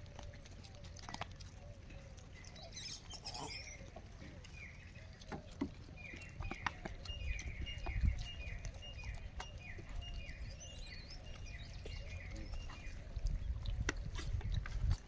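Outdoor ambience of a steady low rumble and scattered faint clicks and rustles, with a run of about ten short, falling chirps, about two a second, through the middle.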